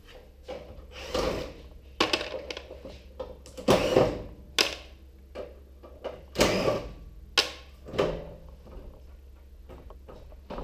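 Sheet-metal parts of a gas stove clanking and scraping as they are pried loose and handled, in a string of irregular knocks, some with a short scrape or rattle after them.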